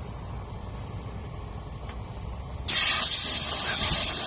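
Compressed air hissing out of a punctured tire through the reamed nail hole, starting suddenly about two-thirds of the way in and then holding steady and loud.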